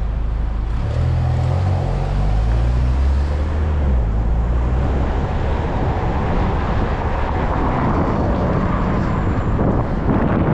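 Road traffic heard while riding: a motor vehicle's engine rumbles past in the first few seconds, then a steady rush of wind and road noise fills the rest.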